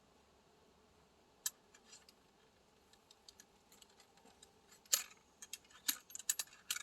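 Wooden ramrod clicking and tapping against the muzzleloader's barrel as the patched ball is rammed home: one sharp click early, then a run of irregular clicks and taps from about five seconds in.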